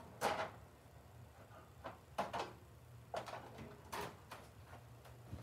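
Tools being handled and picked up off a work surface: about six short clunks and scrapes spread over a few seconds, over a steady low hum.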